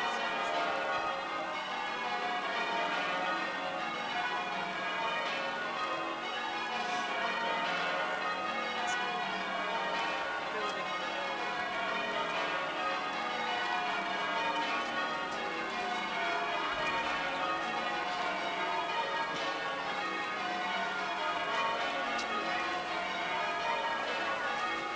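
Church bells change ringing: a continuous, unbroken peal of many bells.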